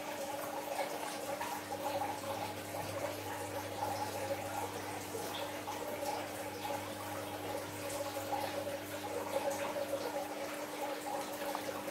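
Watery slime being stirred in a glass bowl with a plastic spatula, a run of small wet clicks and squelches, then squeezed by hand near the end. A steady hum runs underneath.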